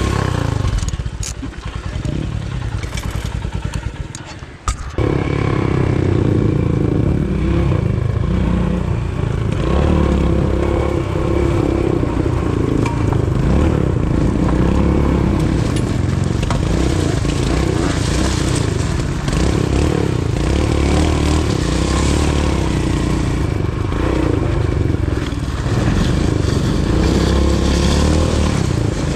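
Royal Enfield Himalayan's single-cylinder engine running with slow, even firing pulses for the first few seconds. After a sharp click near five seconds in, it runs loud and steady under throttle as the bike rides over loose gravel, with some clatter from the stones.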